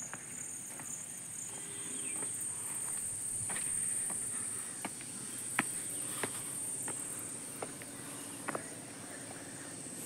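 A steady, high-pitched drone of insects that swells a little midway, with scattered footsteps and scuffs on stone paving.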